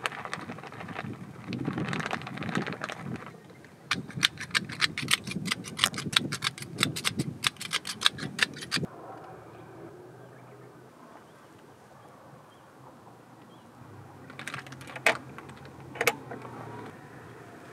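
Plastic bag of shredded cheese rustling as the cheese is shaken out, then a hand-twisted steel pepper mill grinding coarse black pepper: a quick run of sharp clicks, about five a second, for roughly five seconds. Near the end, a few sharp clicks as the lid of an electric hot sandwich maker is closed.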